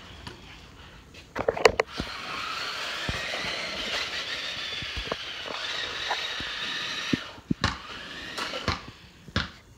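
Toy remote-control car's small electric motor whirring steadily for about five seconds, its pitch rising as it starts, then cutting out. A few sharp clicks and knocks come just before and after.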